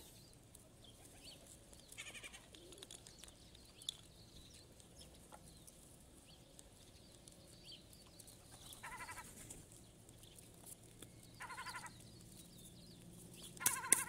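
A flock of birds gathering to be fed, giving short nasal calls a few seconds apart; the last call, near the end, is the loudest.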